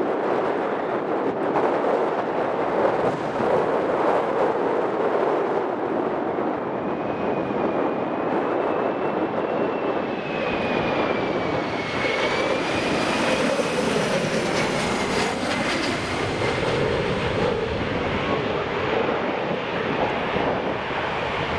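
Twin-turbofan Embraer E-Jet airliner (GE CF34 engines) on final approach, its jet noise a steady rush with a high wavering engine whine that grows loudest as it passes overhead about halfway through, then eases as it heads away.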